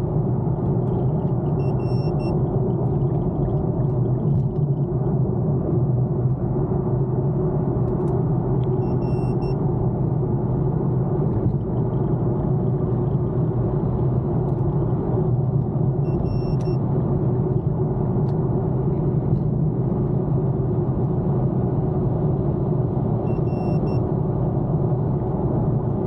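Steady cabin noise inside an Infiniti M37S sedan cruising at highway speed: a low drone of tyres on the road and the engine running. A faint short beep sounds about every seven seconds.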